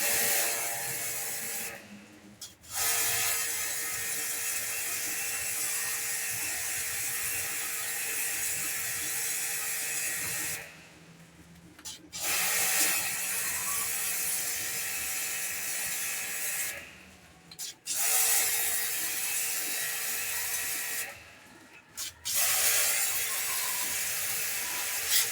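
Pressure washer pump running with a steady hum and the hiss of its spray, in five long bursts. It stops briefly between bursts as the trigger is released.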